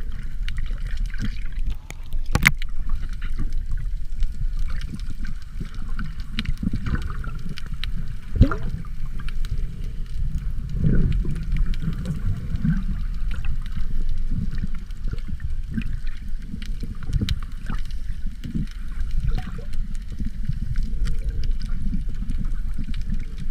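Underwater sound picked up by a submerged camera: a low, muffled rumble of moving water, with swishes and bubbling from a swimmer's hand and fin strokes and scattered sharp clicks and knocks.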